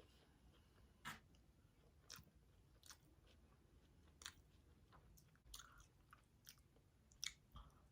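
Faint chewing of pizza, with irregular wet mouth clicks about once a second.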